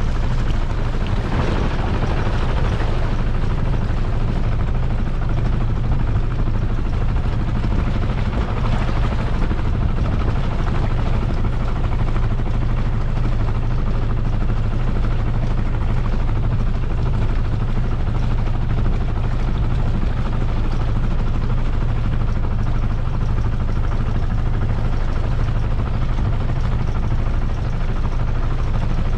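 Engine of a 1968 Westerly Cirrus sailing yacht running steadily, a constant low drone with a hiss of water over it.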